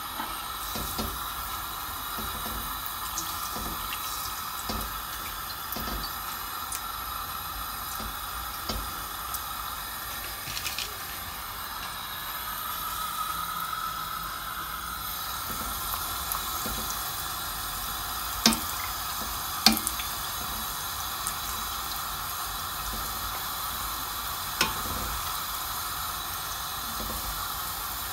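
Breadcrumb-coated tuna fish balls deep-frying in hot oil in a wok: a steady sizzling hiss. A few sharp knocks stand out, the loudest two about a second apart past the middle.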